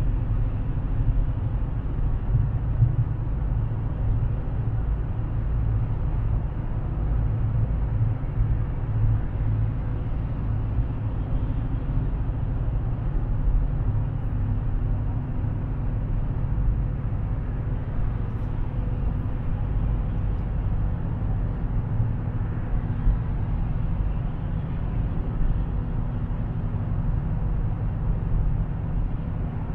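Dodge Challenger cruising at highway speed, heard from inside the cabin: a steady low drone of engine and tire rumble.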